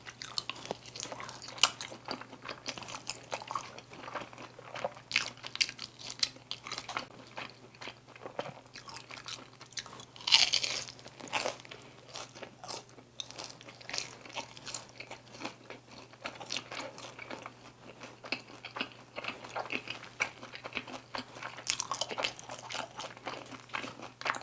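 Chewing and crunching bites of glazed Korean fried chicken (dakgangjeong), with irregular crisp crackles throughout and a louder crunch about ten seconds in, over a faint steady low hum.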